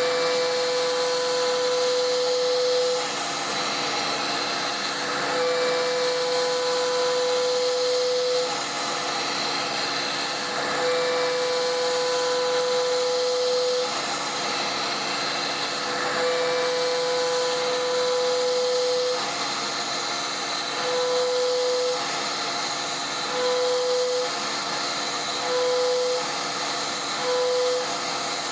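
CNC router's 11 hp Hiteco spindle turning a three-flute bit at 10,000 rpm, adaptive-clearing a pocket. A steady hiss runs throughout, under a humming cutting tone that comes in passes of about three seconds. The passes shorten to about a second each in the last third.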